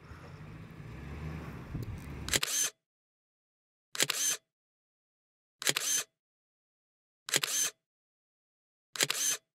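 Camera shutter clicks, one about every one and a half seconds, five in all, each a quick double click, with dead silence between. Before the first click, a couple of seconds of low rumble cut off abruptly.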